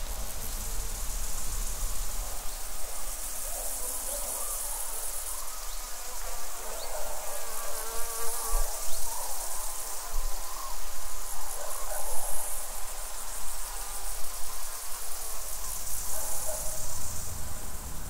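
Meadow insects such as grasshoppers and crickets stridulating: a high, buzzy trill that swells and fades in bouts of a few seconds.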